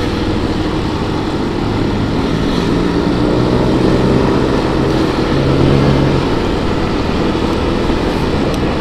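Motorcycle engine running at a steady riding speed, a low engine hum under a constant rush of wind noise over the microphone.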